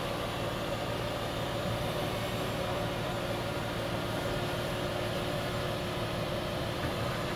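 Steady drone inside a bus cabin from its air conditioning and running vehicle, an even hiss with a faint low hum and no changes.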